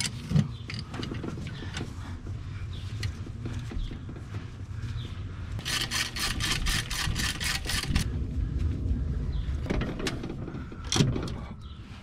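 Hand socket ratchet on an extension clicking in a quick even run of about a dozen clicks, about five a second, a little past the middle. Scattered knocks of tools against the engine around it, with a sharp knock near the end.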